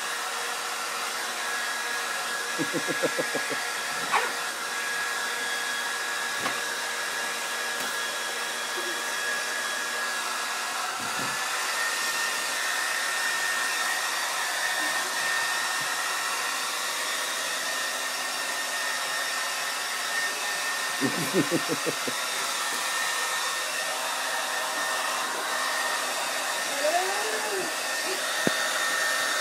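Hair dryer blowing steadily, with a thin whistling tone that steps up slightly in pitch about eleven seconds in. Short bursts of rapid, pitched voice-like sounds break in a few seconds in and again around twenty-one seconds.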